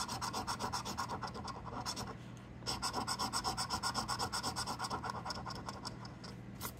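A coin scraping the coating off a scratch-off lottery ticket in quick back-and-forth strokes, several a second. The strokes come in two runs with a short pause about two seconds in.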